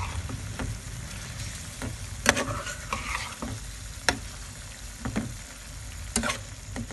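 Chicken pieces frying in oil and masala in a metal pan, sizzling steadily while a spatula stirs them, with a few sharp clinks of the spatula against the pan.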